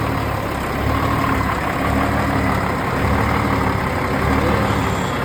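1973 M35A2 deuce-and-a-half's turbocharged multifuel inline-six diesel idling steadily, heard through its factory straight-piped exhaust with no muffler.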